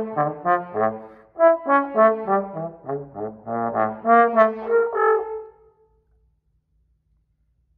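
Tenor trombone playing a quick passage of short, separate notes, with a brief break about a second and a half in. The passage ends on a held note that dies away about five and a half seconds in.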